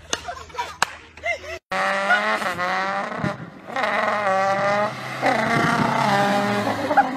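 White Mazda MX-5 Miata convertible driven hard in a parking lot: a loud sustained engine-and-tyre note whose pitch rises and falls, with tyre squeal. It begins abruptly after about a second and a half of children's voices and laughter.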